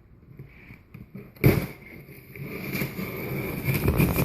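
A cardboard shipping box being handled: a sharp thump about a second and a half in, then continuous rustling, scraping and knocking that grows louder toward the end.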